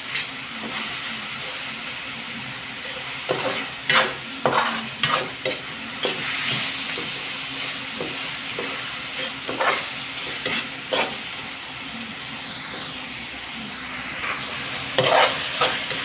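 Pork and tomatoes sizzling in an aluminium wok, stirred with a metal spatula that scrapes and clinks against the pan now and then. The tomatoes are being sautéed down to make the sauce.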